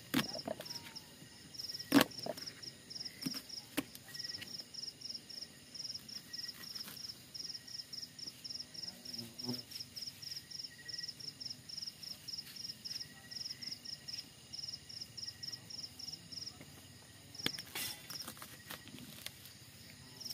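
Insects chirping in a steady, even rhythm of about three or four high-pitched pulses a second. A kitchen knife knocks sharply on a plastic cutting board as an onion is cut: one loud knock about two seconds in, a few lighter ones soon after, and a cluster of taps near the end.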